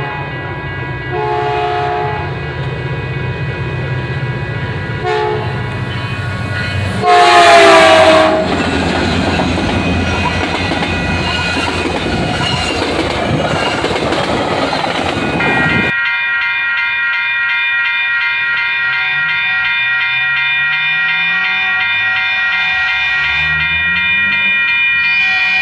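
Diesel passenger train sounding its horn in short blasts, then one very loud blast about seven seconds in that falls in pitch as it passes, followed by the rumble of the train running by. After a sudden change about sixteen seconds in, a steady high tone sounds over the train.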